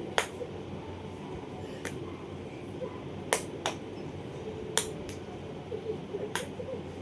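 Sharp clicks of small hard objects striking, about seven at irregular intervals.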